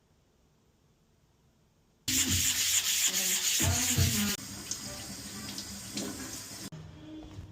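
Sandpaper rubbed back and forth by hand on a surface. It starts suddenly after about two seconds of near silence and is loud and rough for about two seconds, with a few squeaks. It then carries on as quieter scratchy rubbing with a few clicks and fades near the end.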